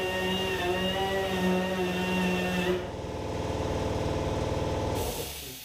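Pneumatic grinder running at high speed, cleaning burrs and rust off sheet metal to prepare it for welding. Its tone drops and changes about three seconds in, then it spins down and stops near the end.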